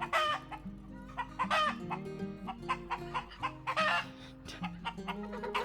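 Hens squawking in loud, repeated calls every second or two: the raucous cackle hens raise around laying an egg. Background music plays underneath.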